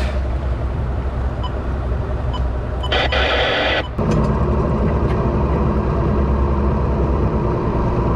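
Outboard motor of an inflatable rescue boat running at low speed, a steady low rumble. About three seconds in, a rushing hiss lasts about a second.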